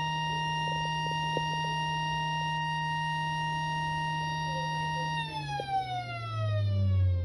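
Warning siren holding a steady tone, then winding down from about five seconds in, its pitch falling steadily.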